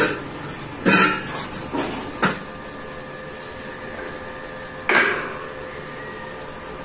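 A few sharp, irregular knocks, each with a short ring, the loudest near the start, about a second in and about five seconds in, over a faint steady hum.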